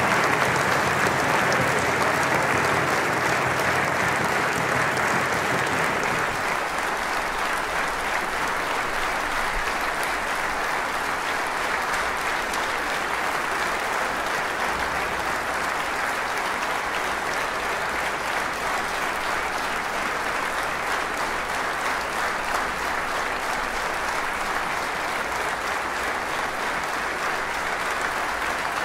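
Large audience applauding, a little louder in the first seconds and then holding steady.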